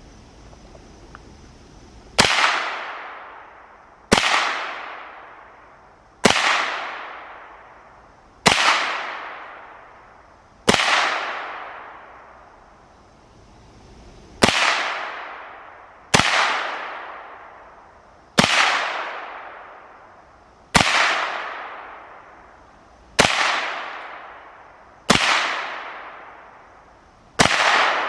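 A firearm firing about a dozen single shots, roughly one every two seconds. Each sharp crack trails off in a long echo.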